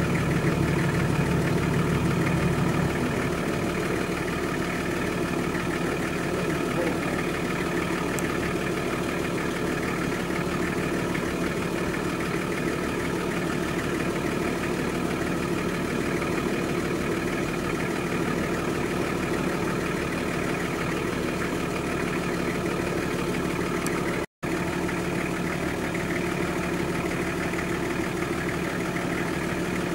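Nissan Patrol SUV's engine running steadily at low revs as it crawls over a rocky track, a little louder in the first three seconds. The sound cuts out for an instant about three-quarters of the way through.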